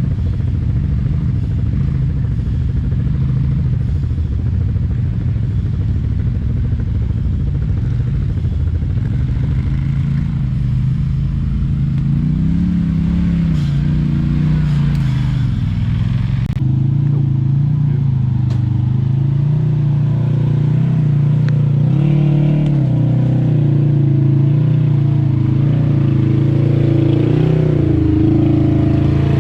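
Off-road vehicle engine running at low revs, its pitch wavering and rising briefly as the throttle is worked, then settling into a steadier, slightly higher note a little past halfway.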